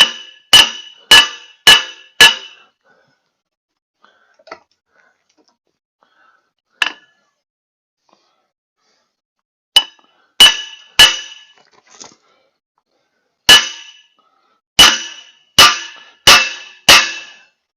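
Hammer striking metal, tapping a part into the end of a log splitter's hydraulic cylinder. Each blow rings briefly. There are five quick blows about half a second apart, a single blow, three more, then a run of five near the end.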